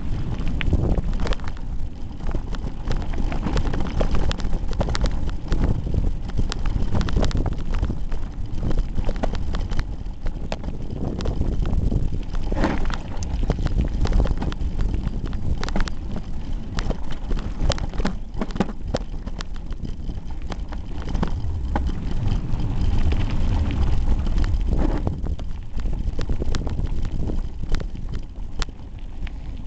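Hardtail mountain bike rattling and clattering over a rough dirt trail, picked up through a camera duct-taped to the handlebars, so every jolt comes through as a dense run of knocks over a steady low rumble of wind and tyres. It dips slightly near the end.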